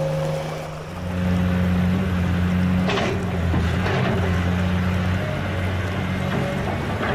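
Low, steady engine drone with a hum that gets louder and deeper about a second in, and a brief crackle about three seconds in.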